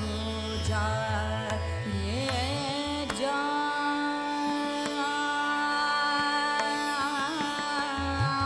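Background music in an Indian classical style: a held drone and a gliding melody over low, rhythmic drum strokes that drop out about three seconds in and return near the end.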